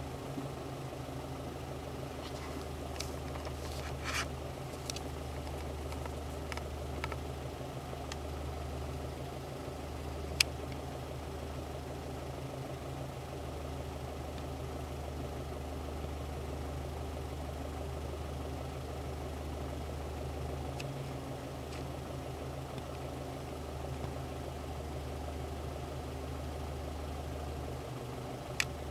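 Steady low engine-like hum, with a few light clicks early on and one sharp click about ten seconds in.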